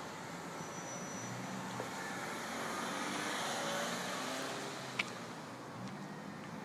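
A motor vehicle passing by, its engine and tyre noise swelling to a peak a few seconds in and then fading, with one sharp click about five seconds in.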